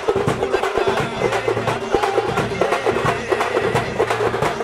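Festival drum band: sticks beating a large bass drum and small hand-held drums in a fast, driving rhythm, with a steady held tone running underneath.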